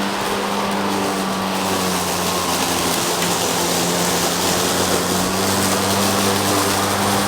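Lawn mower running steadily under load while cutting grass, a constant engine hum with no change in pitch.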